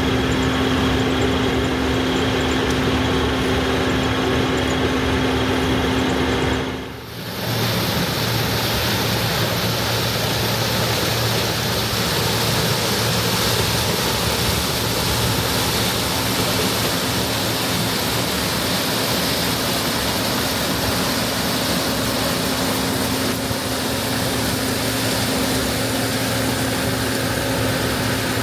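Allis-Chalmers Gleaner F2 combine running steadily while harvesting corn: a constant machine drone with a steady hum. It drops away briefly about seven seconds in, then carries on with more hiss.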